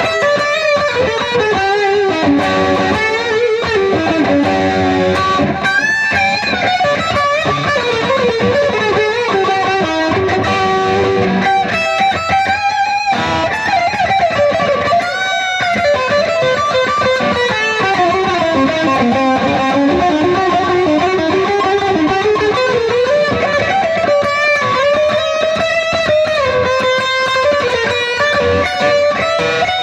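Background music: electric guitar playing a melodic, bending lead line over a steady accompaniment.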